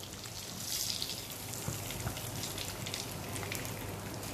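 Hot oil sizzling with a fine, steady crackle in a nonstick frying pan used for shallow-frying chapli kababs.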